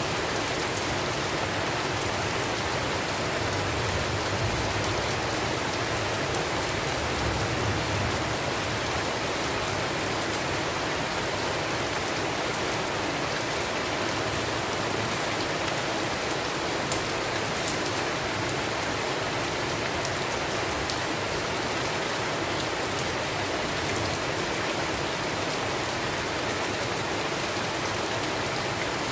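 Steady heavy rain falling on a surface, an even hiss with scattered drop ticks.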